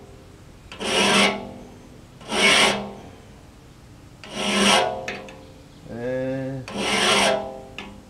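Hand file drawn across a tooth of a large circular sawmill blade, four slow rasping strokes about two seconds apart, each with a ringing note from the steel blade: the teeth are being resharpened after swaging.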